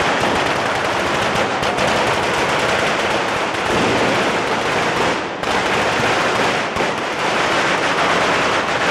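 Fireworks on a ceremonial cart going off in a rapid, unbroken string of loud bangs and crackles, easing briefly about five seconds in.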